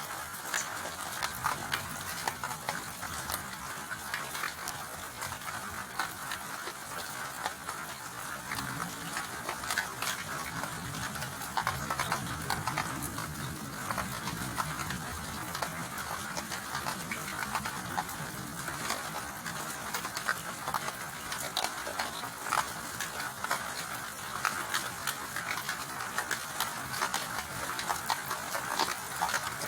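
Steady rain falling, an even hiss dotted with the quick ticks of individual drops striking.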